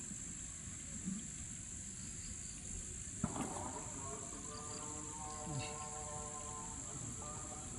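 Crickets chirring in a steady, high, even drone, with a single sharp click about three seconds in.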